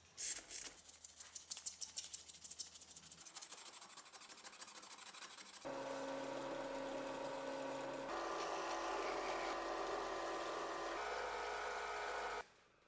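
Fine sandpaper rubbed by hand over a brass blowtorch tank in quick rasping strokes. After about five and a half seconds, a bench drill press runs with a steady motor hum while a small part spinning in its chuck is polished with sandpaper. It stops abruptly near the end.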